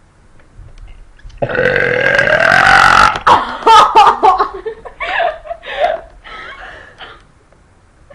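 A girl lets out a long, loud burp, starting about a second and a half in and lasting nearly two seconds, its pitch sliding up and down; a run of shorter, choppy burp-like sounds follows.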